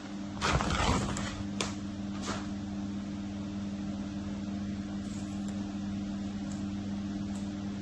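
Steady electrical hum of a high-frequency (HF) welding machine for stretch-ceiling harpoon film, with a short hiss about half a second in and a couple of clicks before the hum settles.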